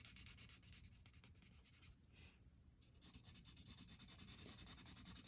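A colouring tool scribbling on paper in quick back-and-forth strokes, with a short pause about two seconds in before the strokes resume, faster and more even.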